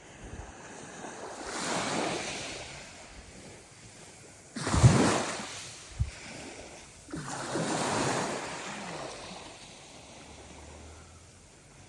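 Sea waves washing in against the shore, three surges a few seconds apart; the middle one breaks suddenly and is the loudest.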